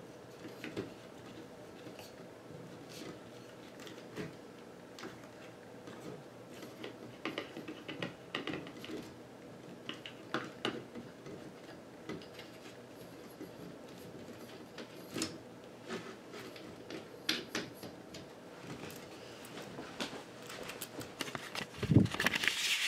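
Faint scattered clicks and small knocks from handling a tripod. Just before the end, a louder rustling with a low thump as the camcorder is picked up by hand.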